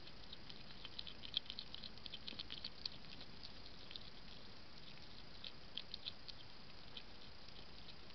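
Hedgehog eating from a feeding dish: quick, irregular smacking and crunching clicks, thickest between about one and three seconds in and again around six seconds, over a faint steady hiss.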